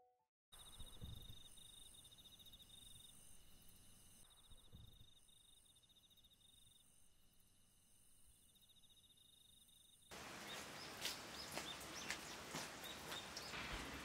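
Faint insects chirping in repeated high, pulsing trills over a soft outdoor hiss. About ten seconds in, the sound changes abruptly to the patter of rain, a louder even hiss with many small drops.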